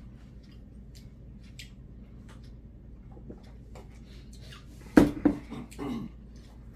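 Faint clicks and handling sounds of someone eating at a table, then a sharp clatter of dishes or utensils about five seconds in, followed by two softer knocks.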